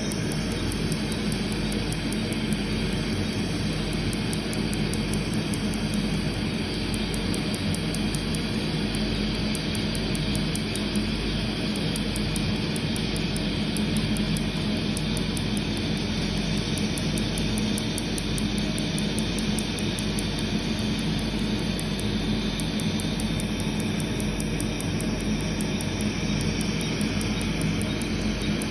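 A laser tattoo-removal handpiece firing a fast, even run of snapping clicks, over the steady rush of a cold-air skin cooler blowing through a hose onto the treated skin.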